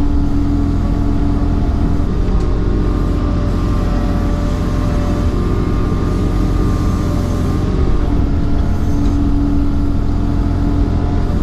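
Case CX26C mini excavator's diesel engine running steadily, heard from inside the cab. A whining tone rises over it at the start and again about eight seconds in, as the machine is worked.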